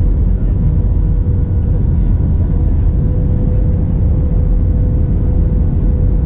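Airliner cabin noise on descent: a steady, loud low rumble of engines and airflow, with a steady hum over it.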